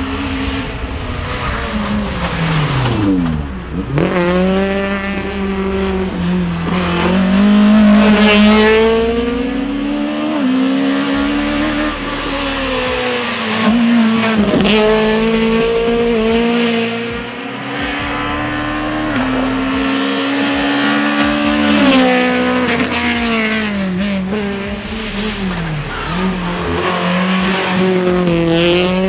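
Citroen C2 hillclimb car's naturally aspirated 1.6-litre inline-four revving hard. The pitch climbs and drops again and again with gear changes and braking for corners.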